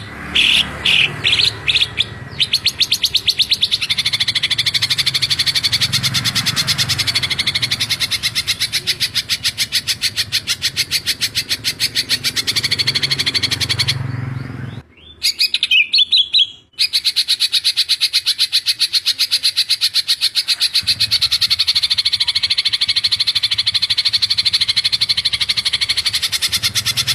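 Cucak ijo (green leafbird) singing in close-set 'tembakan' bursts: fast runs of sharp, high repeated notes, many per second, with hardly a pause. About halfway through the run breaks off briefly for a short, different phrase, then resumes.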